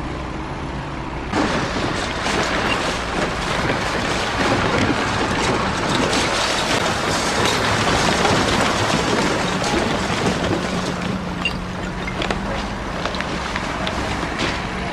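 Heavy machinery working a rubbish landfill: a dense engine rumble with scattered clanks and rattles of refuse. It grows louder about a second in, and a steady engine hum joins it later.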